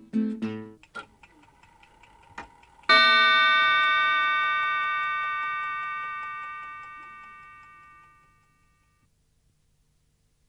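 The last acoustic guitar chords of a song ring out briefly, then about three seconds in a single bell-like chime is struck loudly and dies away slowly over about five seconds, leaving near silence.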